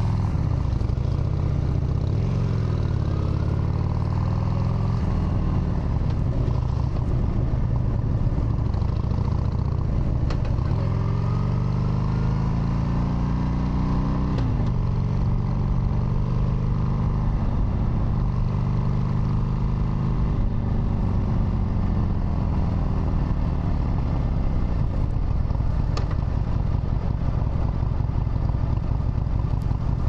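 Harley-Davidson Sportster V-twin engine running under way. The revs climb steadily through the first half, drop sharply about halfway through, hold level, then wind down and settle to a low, steady run near the end.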